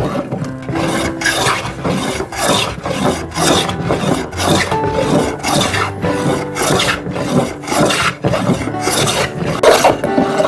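Rough rasping strokes, about two a second, as a hand tool is scraped back and forth over a surface.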